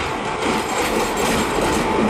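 WAP-4 electric locomotive and its passenger coaches passing at close range, wheels rumbling on the rails with a thin steady whine over the noise, growing slightly louder.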